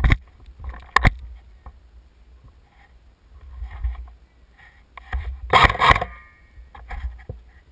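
Wind rumbling on the microphone, with a sharp click at the start and another about a second in, then a louder burst of noise about five and a half seconds in.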